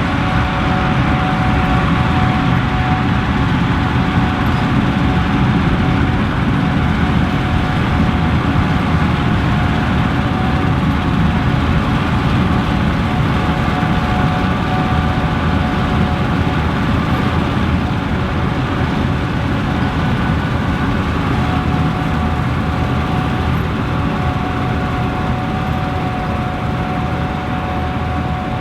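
Gleaner Class 7 combine harvester running steadily while harvesting wheat: a dense low rumble of engine and machinery with several steady whining tones above it, easing slightly near the end.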